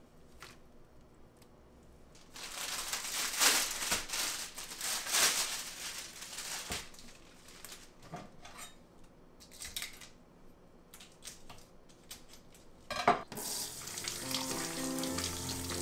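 Rehydrated seaweed being lifted and squeezed over a glass bowl of water, with water splashing and dripping, then light clicks and a sharp knock as vegetables are handled on a wooden cutting board. Near the end a kitchen tap runs as celery is rinsed under it.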